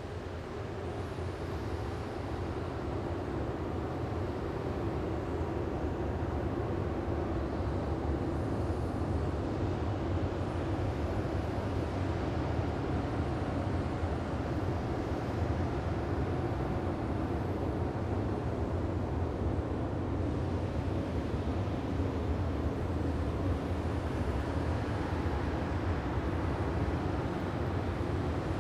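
Sci-fi alien planet wind ambience: a steady, low windy drone with faint held tones underneath, fading in over the first few seconds.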